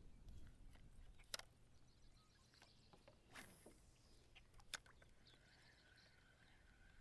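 Near silence: quiet outdoor ambience with two faint sharp clicks and faint high chirps, typical of distant birds, in the second half.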